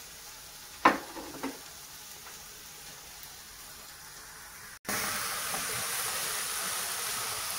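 A couple of sharp knocks of crockery on the worktop about a second in, then, after a sudden break, a steady sizzle of onions and minced meat frying in an aluminium pot on a gas hob as they are stirred.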